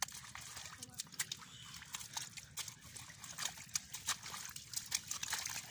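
A short-handled hoe chopping and dragging through wet mud, making irregular wet squelches, sucks and clicks.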